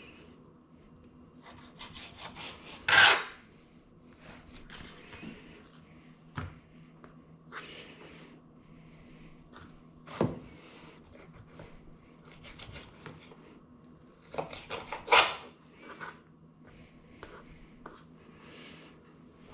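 Kitchen food-prep handling: intermittent rubbing and scraping on wood, with three sharp, louder knocks or clatters spread through it, over a steady low hum.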